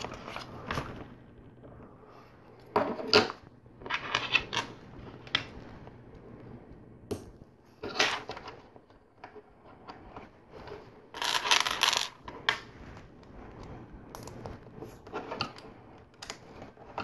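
Small plastic LEGO pieces clicking and clattering as they are picked from a loose pile and snapped onto a build, in irregular short bursts, with a longer rattle of pieces about two-thirds of the way through.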